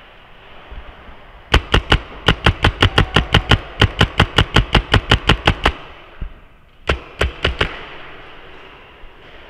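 Paintball marker firing a rapid string of about two dozen shots at roughly six a second, then after a short pause a burst of four more.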